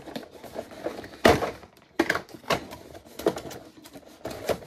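Handling noise from small items and packaging: a handful of separate knocks and taps with light rustling between them, the loudest about a second in.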